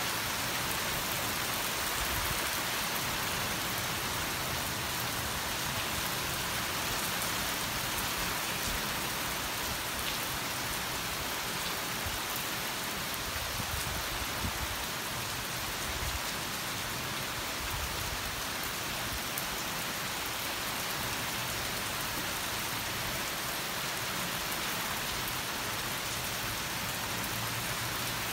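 Heavy rain falling steadily, an even unbroken hiss of a downpour.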